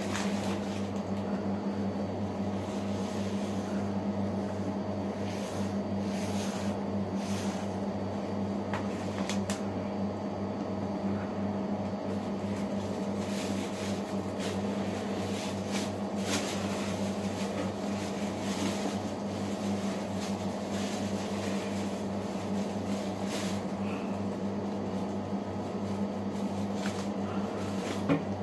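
Steady hum of a running appliance motor, with scattered light clicks and rustles.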